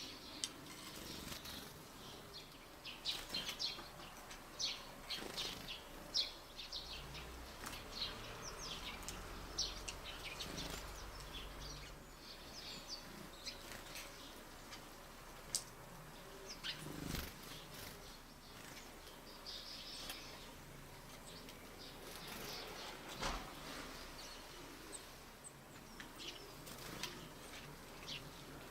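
Small wild birds at a feeder giving many short, high chirps in scattered flurries, with a couple of brief knocks.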